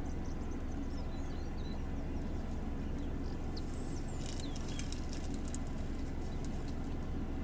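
Small birds chirping over a steady low rumble, with a short run of crisp snaps and rustles about four seconds in: an African elephant breaking twigs as it browses a bush.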